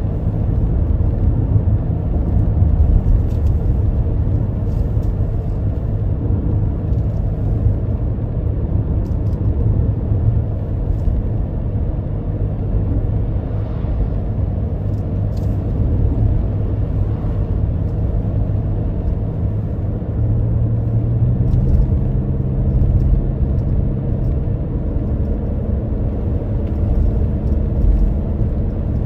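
A car driving along a country road: a steady low rumble of engine and tyres. The engine note rises slightly about two-thirds of the way through.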